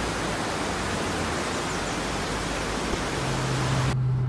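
Steady rushing noise of sea surf breaking over rocks, cutting off abruptly near the end. Shortly before the cut, the low steady hum of the Mercedes-AMG A45's turbocharged four-cylinder engine comes in and carries on alone.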